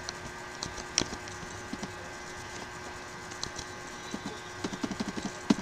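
Scattered computer keyboard keystrokes, with a quick run of several keystrokes near the end, over a faint steady electrical hum.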